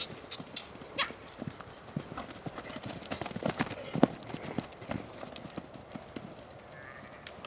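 Horse hooves clip-clopping on hard ground: a string of irregular knocks, the loudest about four seconds in.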